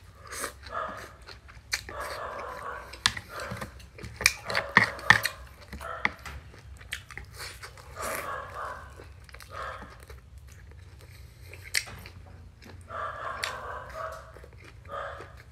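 Close-up eating sounds: rice vermicelli slurped, then a fried piece bitten and chewed, with wet mouth noises coming in short runs. Sharp clicks of chopsticks against a ceramic plate.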